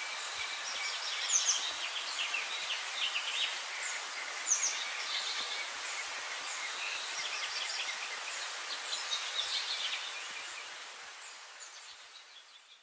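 A flock of sparrows chirping: many short, overlapping high chirps over a steady outdoor hiss, fading out over the last couple of seconds.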